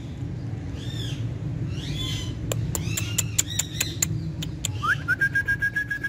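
Indian ringneck parakeet calling: short arching chirps, then a quick run of sharp clicks mixed with short calls. Near the end a whistle rises and holds one steady note.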